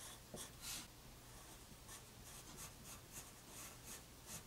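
Pencil scratching on paper in a run of short, faint strokes, with one louder stroke under a second in.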